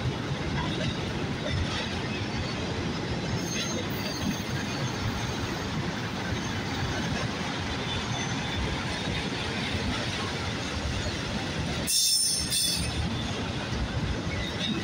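Freight train of autorack cars rolling past, with a steady rumble and rattle of steel wheels on the rails. There is a brief burst of hiss about twelve seconds in.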